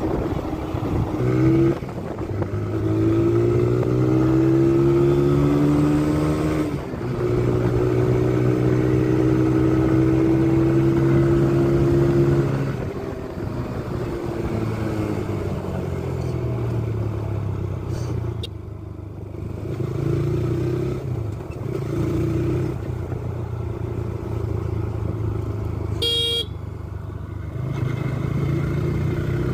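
Single-cylinder engine of a TVS motorcycle running under way, climbing in pitch as it accelerates, dropping suddenly at a gear change, then holding steady before the throttle eases and it runs lower and quieter. A short horn beep near the end.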